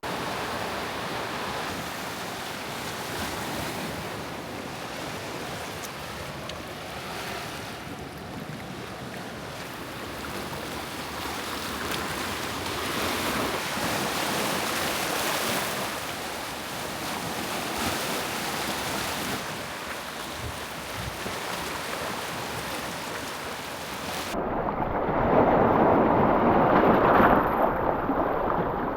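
Small waves washing onto a sandy beach, swelling and easing. Wind noise on the microphone. About four seconds from the end the sound turns muffled and louder; this is the loudest part.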